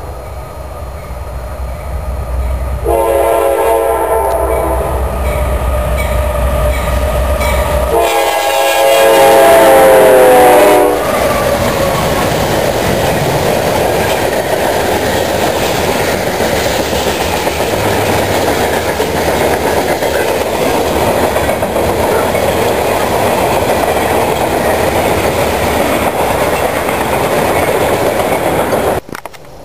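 A diesel freight locomotive sounds its multi-note horn in two long blasts as the train approaches. The second blast is the loudest and drops in pitch as the locomotives pass. It is followed by a steady rumble and clickety-clack of the freight cars rolling by on the rails.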